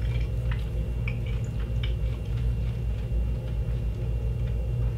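Steady low hum of room noise, with faint small clicks in the first couple of seconds from chewing small sour candy pellets that chew without much crunch.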